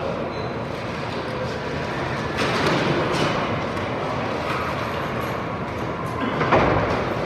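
Bus station interior ambience: a steady wash of crowd noise and vehicle sounds echoing in the terminal hall. It swells about two and a half seconds in, and a sudden knock with a low rumble comes about six and a half seconds in.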